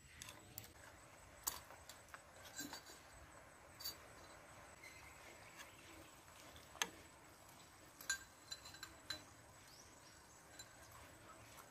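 Sparse light clicks and clinks of chopsticks and a metal ladle against a steel soup pot, scattered through the quiet, the sharpest about seven seconds in.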